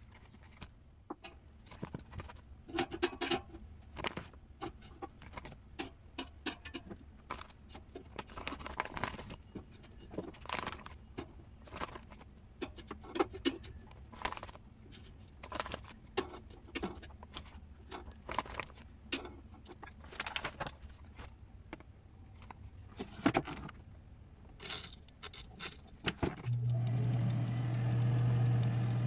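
Irregular clicks and clatter of handling at the open air fryer basket, then about 26 seconds in the Hanabishi 7 L air fryer switches on and its fan runs with a steady low hum and rush of air.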